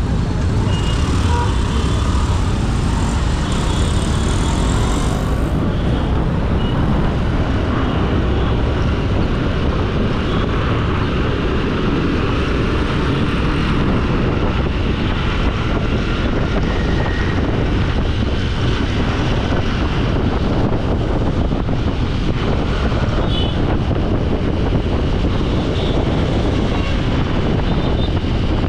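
Steady road and traffic noise heard while travelling through city streets: vehicle engines, tyres and a heavy low rumble, with a few faint short high tones near the end.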